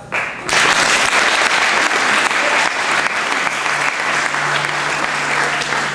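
Audience applauding, breaking out about half a second in just after the last piano notes die away, and carrying on steadily.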